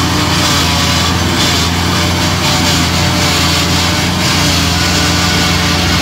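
Takakita SMB1000 tracked rice harvester-baler running steadily as it cuts through a standing crop: a constant engine and machinery drone with no change in pitch.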